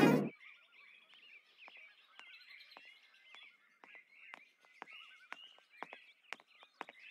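A bus horn, loud at first, cuts off sharply a moment in. After it comes faint birdsong and a series of crisp footsteps on a dry dirt path, about two a second over the last few seconds.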